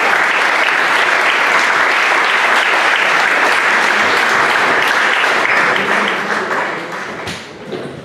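Audience applauding, dense clapping that dies away about six to seven seconds in.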